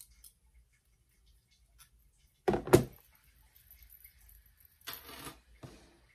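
Metal jewellery pliers set down with a clatter on a table about two and a half seconds in, followed by quieter clinking and rustling of wire bangles and charms as they are handled.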